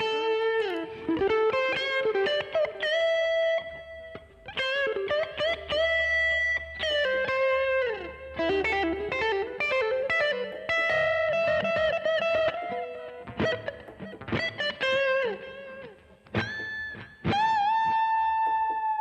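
Electric guitar played through a Boss GT-10 effects processor: a melodic lead line of single sustained notes with string bends and vibrato, in short phrases, ending on a long held note near the end.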